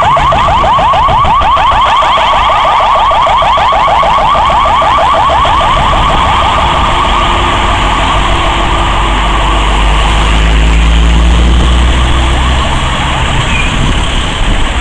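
Ambulance siren in a rapid yelp, a fast repeating sweep of pitch that fades away over the first ten seconds or so. A deep rumble of heavy traffic grows louder toward the middle.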